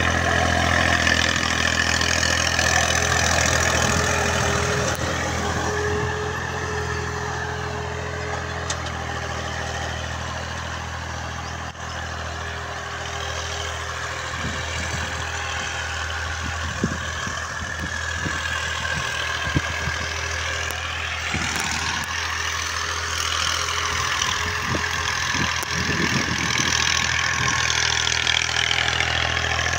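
Tractor engine running steadily as it pulls a plough through the field, quieter through the middle and louder again near the end.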